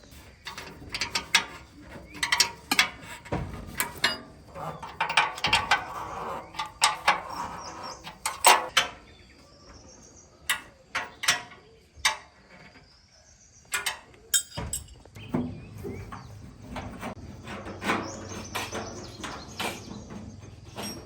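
Hand work on metal machine parts: irregular sharp metallic clicks, clinks and knocks of tools and parts.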